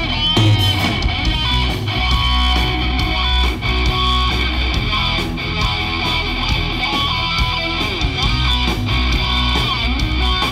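Rock music led by guitar, playing steadily with a driving beat.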